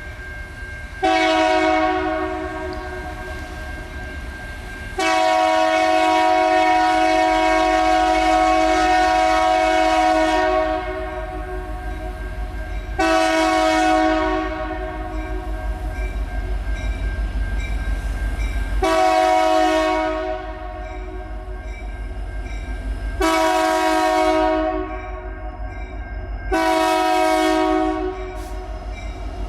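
Diesel locomotive air horn sounding six blasts of a multi-note chord, the second held about five seconds and the others one to two seconds each, over the low rumble of the approaching locomotives, which grows louder midway.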